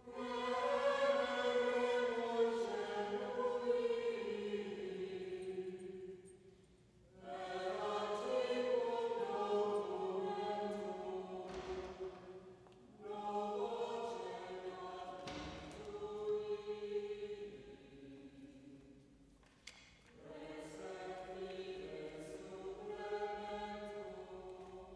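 A choir singing slow sacred chant in long held phrases, breaking off briefly between phrases three times.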